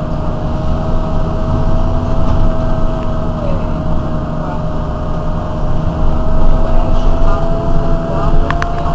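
Heuliez GX 127 city bus's diesel engine idling at a stop: a steady low rumble with a constant whine over it. Two sharp clicks come near the end.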